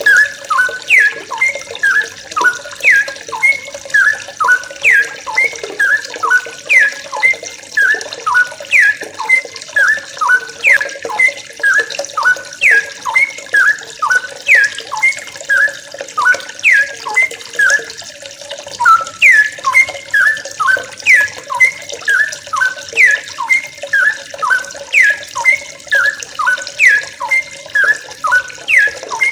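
A group of young yellow-vented bulbuls (trucukan) chattering: short, sharply down-sweeping bubbly notes repeated about two to three times a second, several birds overlapping.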